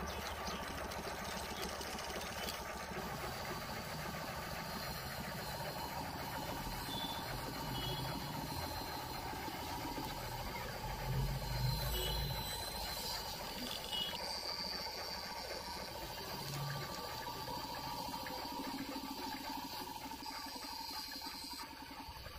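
Small electric motor running steadily, driving a miniature chaff cutter's flywheel and blade by string belts, with a brief louder patch about halfway through as green grass is fed in and chopped.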